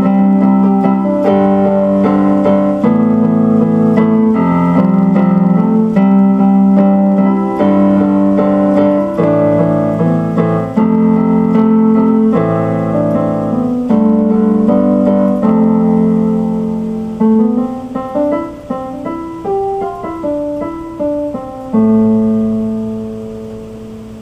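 Solo instrumental piano music played on an electric keyboard: slow held chords, thinning to single notes near the end, and closing on one long chord that fades away.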